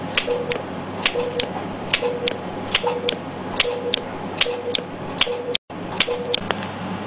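INTRAcel fractional radiofrequency microneedle handpiece firing pulse after pulse, about one a second. Each pulse is a sharp click as the needles go in, a short beep while the RF current flows, then another click as they retract.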